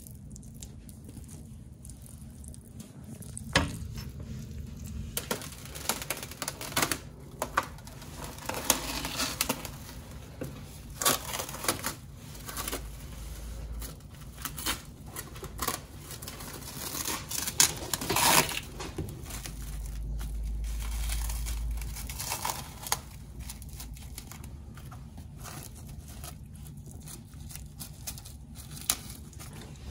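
Food-preparation handling sounds: crinkling and rustling with scattered knocks and clicks, busiest in the middle stretch.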